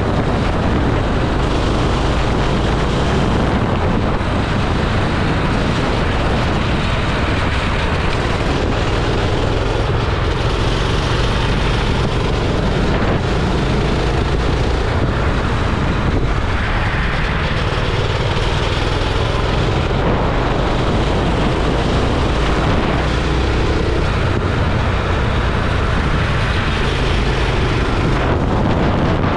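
Go-kart engine running at speed on a track, mixed with heavy wind buffeting on the microphone; the sound is loud and steady throughout.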